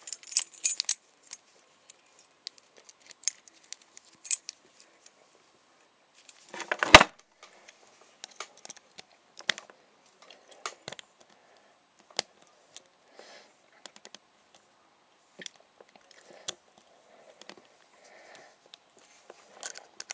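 Lock pick and tension wrench working the keyway of a brass Yale 50mm padlock: sparse small metallic clicks and scrapes. Keys jangle in the first second, and a louder metallic clatter comes about seven seconds in.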